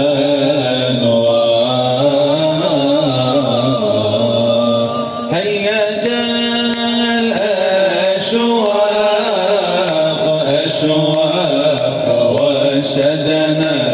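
Male vocal chanting of a devotional Islamic nasheed. The voice sings long, ornamented notes that bend and waver in pitch, with a higher drawn-out phrase about halfway through.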